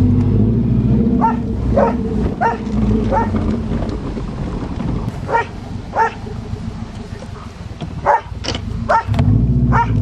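A dog barking in short, sharp yips, repeated about every half-second to second, over the Subaru Legacy's engine running. The engine swells near the start and again about nine seconds in.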